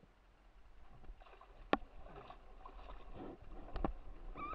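Water splashing and lapping against an RS600FF dinghy's hull, with a low wind rumble on the microphone. Two sharp knocks from the boat being handled sound out, one under two seconds in and one about four seconds in.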